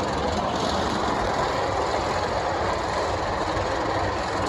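Jersey Devil Coaster's single-rail train running on its track during an unmanned test run: a steady, even rumble and clatter with no breaks.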